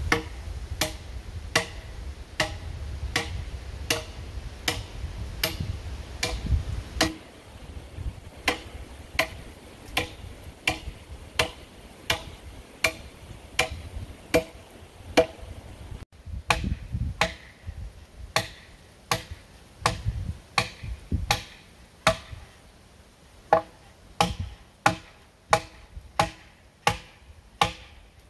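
A hand tool striking the log beam and post of a log woodshed frame in steady, evenly spaced blows, a little under two a second, each with a short ring. Low wind rumble on the microphone comes and goes under the blows.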